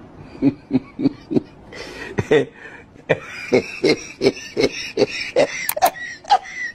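A person laughing in short repeated bursts, about three a second, each dropping in pitch.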